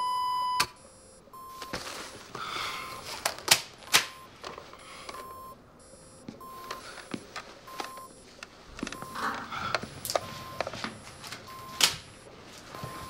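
Hospital patient monitor's continuous flatline tone cutting off sharply just over half a second in, signalling the infant patient's death. A cardiac monitor then beeps about once a second, with a few sharp clicks and knocks from equipment being handled.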